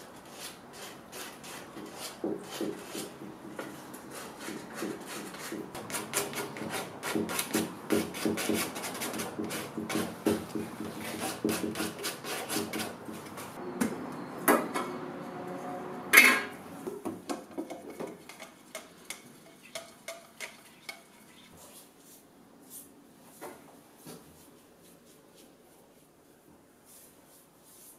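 Hand-sanding of a white-painted wooden bookcase: a fast, busy run of short abrasive rubbing strokes. About fourteen and sixteen seconds in come two sharp metallic clanks from a metal paint can being opened, the second the loudest sound. After that only faint occasional light taps are heard.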